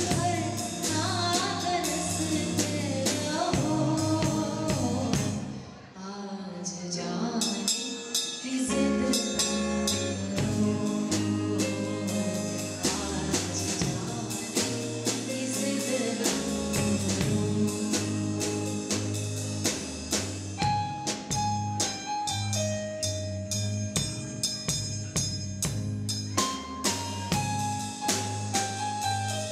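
Music with singing and drums. The music thins out briefly about six seconds in, then goes on with a steady drum beat under held notes.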